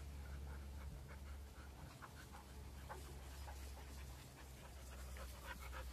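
Dogs panting faintly in quick short breaths as they run about, over a steady low rumble.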